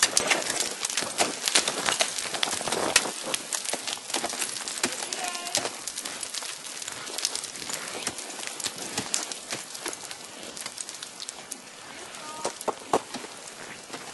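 Ice climbing tools and crampon points striking and scraping steep waterfall ice: many sharp clicks and knocks, densest and loudest in the first few seconds, then thinning out.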